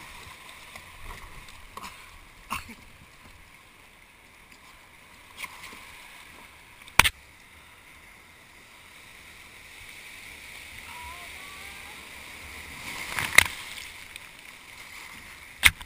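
Sea water rushing and splashing around a tandem kayak being paddled through breaking surf, the hiss swelling as the boat punches through white water near the end. A few sharp knocks sound, the loudest about midway and again near the end.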